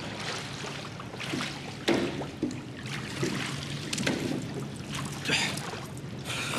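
Water splashing and sloshing in a hot tub as a man climbs out over its edge, in uneven surges.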